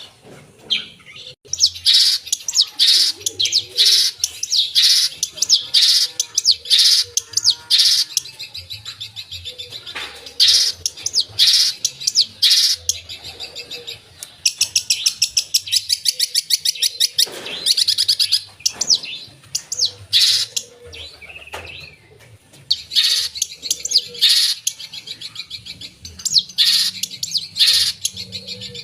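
Long-tailed shrike (cendet) singing hard: a varied run of loud, sharp high chirps and fast rattling trills, mixing in mimicked calls of other birds.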